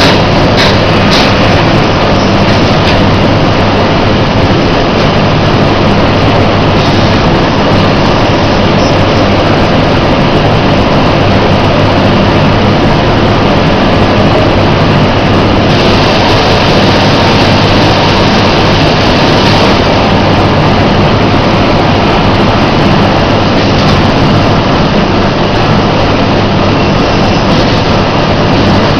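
Semi-automatic feed bagging machinery running: a loud, steady mechanical din with a low hum, briefly a little brighter about halfway through.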